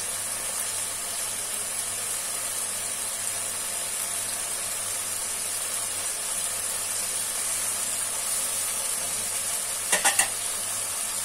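Chicken pieces sizzling steadily in oil and tomato-spice masala in a frying pan, with soy sauce and vinegar just added. About ten seconds in, three quick sharp knocks.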